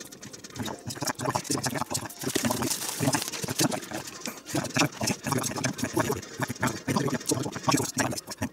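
A sanding stick rubbed briskly along the edge of a depron foam part: a rapid, irregular scratching and rasping, with no steady tone.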